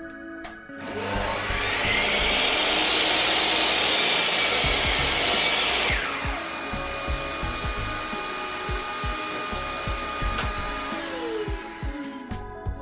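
Sliding mitre saw spinning up about a second in and cutting through a block of wood until about six seconds in. The blade is then let go and winds down with a falling whine.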